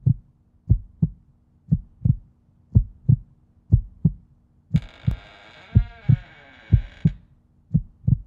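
Heartbeat sound effect: low double thumps (lub-dub) about once a second. A hissing, glitchy sound with a falling tone joins for about two seconds in the middle.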